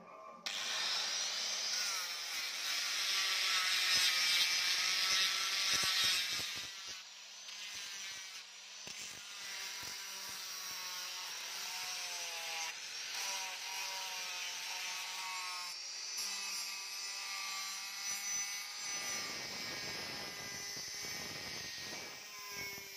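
Electric angle grinder with a sanding pad running against a bearing-steel knife blade, starting about half a second in. Its whine wavers up and down in pitch as the pad is pressed on and eased off, and it is loudest in the first few seconds.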